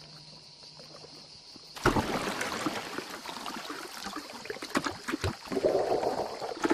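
Water splashing and dripping as an Asian archerfish breaks the surface of the pool. It starts suddenly about two seconds in with many small splashes and drips, and there is a louder gurgling splash near the end.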